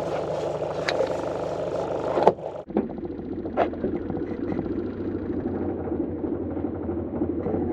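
A car running steadily, with a sharp click and an abrupt change in the sound about two and a half seconds in, where it cuts to a different stretch of the same steady running.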